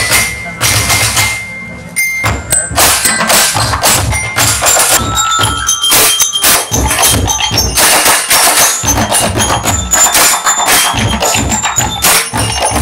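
Drumblek percussion ensemble playing: dense, fast pounding on drums and barrels with wood-block knocks and bell-like mallet notes. The music drops back about a second in and comes back in full with a sharp hit at about two seconds.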